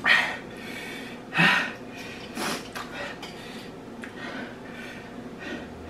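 Sharp noisy breaths and slurps from people eating extremely spicy instant ramen noodles, their mouths burning: three louder ones in the first two and a half seconds, then a couple of fainter ones.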